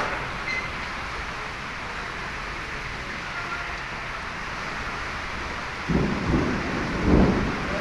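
Heavy rain falling steadily, with a low rumble of thunder breaking in about six seconds in, swelling twice and fading near the end.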